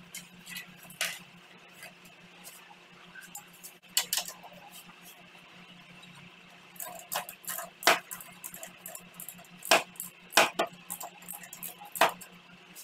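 Hand tools on motorcycle rear shock absorber mounting bolts: irregular metallic clinks and clanks of a spanner and ratchet, with a handful of sharper knocks, over a steady faint hum.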